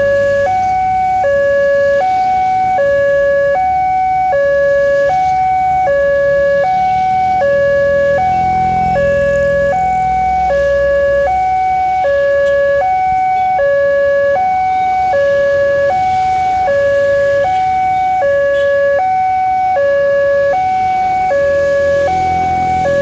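Level-crossing electronic warning alarm sounding, a loud two-tone signal alternating between a lower and a higher note, each held just under a second, repeating steadily. This warns that a train is approaching. A vehicle rumbles past about halfway through.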